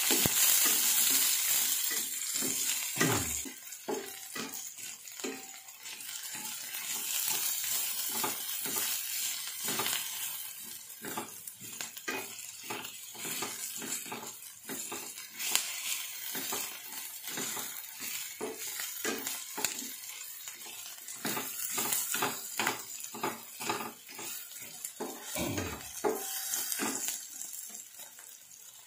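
Chopped onion and garlic sizzling in hot oil in a stainless steel frying pan while a wooden spatula stirs them, scraping and knocking against the pan many times. The sizzle is loudest in the first few seconds.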